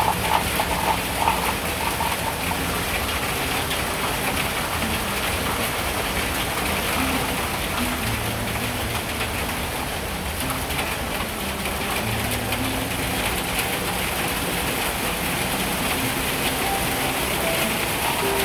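A hailstorm of small, beadlike hailstones: a steady, dense patter of ice pellets hitting the ground and roof.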